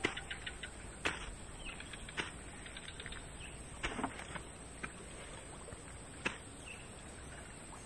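Quiet swamp outdoor ambience with a few faint bird chirps and a steady high-pitched tone, broken by a handful of light, sharp clicks.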